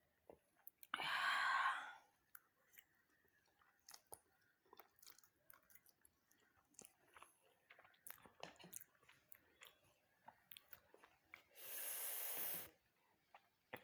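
A person chewing spicy noodles with small wet mouth clicks, broken twice by loud, noisy breaths, one about a second in and one near the end. The breaths are those of a mouth burning from chilli.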